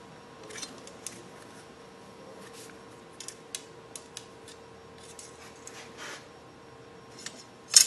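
Large metal calipers being worked against the steel flange of a hydraulic final drive travel motor: scattered small metallic clicks and scrapes, with a louder run of clinks near the end. The calipers are so tight that they are hard to set.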